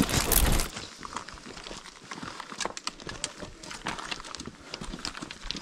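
Footsteps on a rocky mountain trail: irregular crunching and scuffing of boots on stones and gravel. A brief loud rush of noise comes right at the start.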